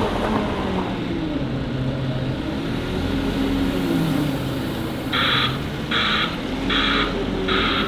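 Claas Torion loading shovel working, its diesel engine rising and falling in pitch. From about five seconds in a reversing alarm beeps steadily, about once every 0.8 s, four beeps.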